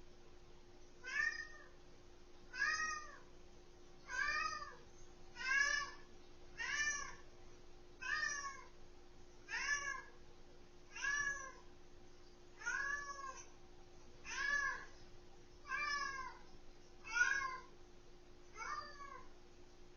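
An animal calling over and over: about thirteen short calls, each rising then falling in pitch, roughly one every second and a half, over a faint steady hum.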